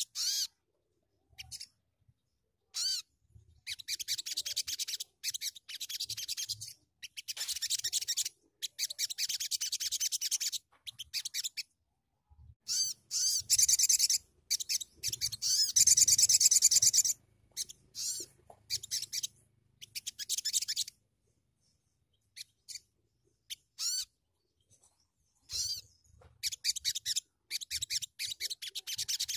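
Sogon (sogok ontong) songbird singing a high-pitched, rapid twittering song in bursts of a few seconds with short silences between, the longest and loudest stretch about halfway through.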